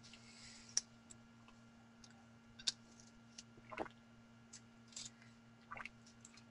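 Quiet room tone with a steady low hum, broken by about half a dozen faint, short clicks scattered through it.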